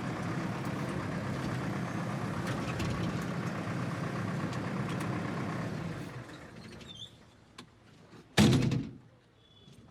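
A vehicle engine running steadily, fading away about six seconds in. Near the end there is a single loud thunk.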